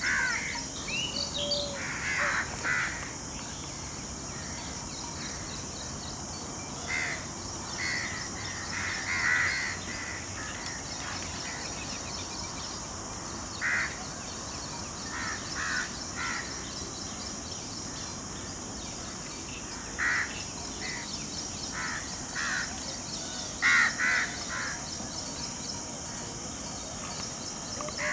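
Harsh, cawing bird calls, short and coming in groups of two or three every few seconds, over a steady high-pitched hiss.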